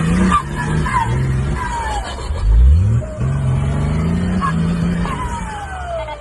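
Nissan Y60 Patrol turbo engine revving up and down under load, the revs climbing sharply and loudest about two and a half seconds in. After each lift-off a turbo whistle falls away, with the longest fall near the end.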